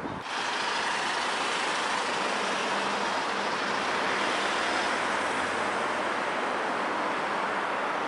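Steady, even roar of urban road traffic, starting abruptly about a fraction of a second in.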